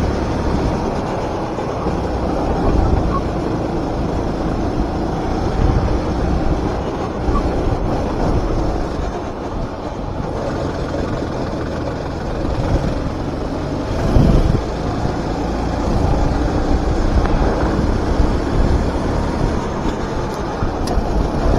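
Four-stroke rental kart engine running at race pace, its pitch repeatedly rising and falling as it accelerates and lifts through corners, over a steady low rumble. A brief louder thump comes about two-thirds of the way through.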